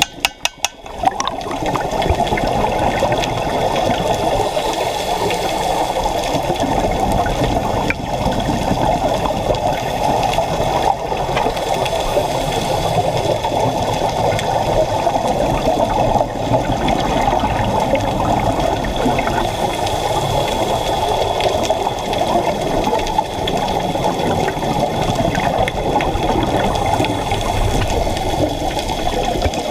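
Underwater ambient noise picked up by a camera in a dive housing: a steady, muffled rushing of water, starting about a second in.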